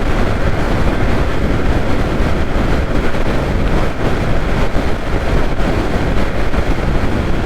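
Steady wind rush and road noise while riding a Yamaha R15 V3 motorcycle at speed, with the wind buffeting the rider's microphone.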